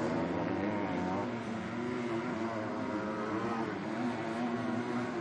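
Motocross bikes of 250cc four-stroke class racing, their engines revving up and down as they ride the track.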